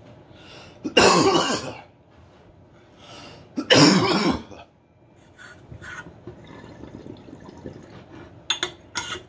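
A man coughing hard twice, each fit about a second long, on harsh smoke from a bong hit. A few light glass clicks follow near the end as the bong's pieces are handled.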